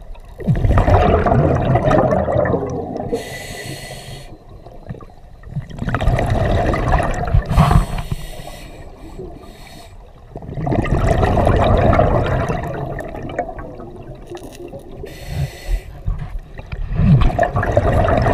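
Scuba diver breathing through a regulator underwater: a brief hiss on each inhalation, then a long bubbling rush of exhaled air, four breaths in all.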